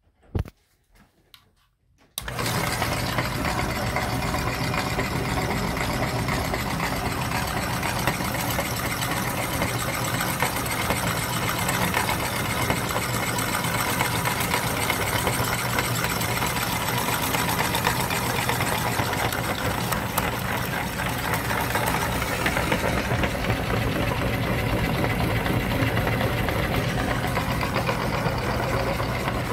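An electric meat grinder's motor switches on about two seconds in and runs steadily with an even hum, empty and not yet loaded, after a few light clicks.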